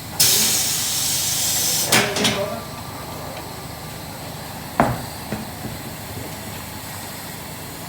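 Tire shop's pneumatic tire equipment: a burst of compressed air hissing for nearly two seconds, a couple of knocks, then a single sharp knock about five seconds in.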